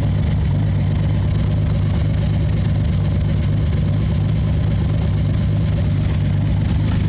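Datsun 280Z's turbocharged L28ET inline-six idling steadily through a 3-inch exhaust with the silencer removed, a low, even exhaust note.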